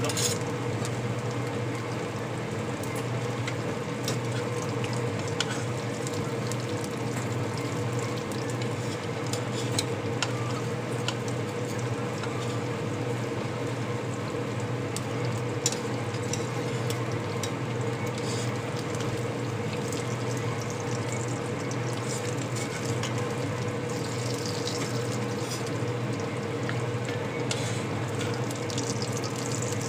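Dried salted sardines (tuyo) frying in hot oil: a steady sizzle, with scattered sharp clicks of metal tongs as the fish are turned and lifted out. A steady low hum runs underneath.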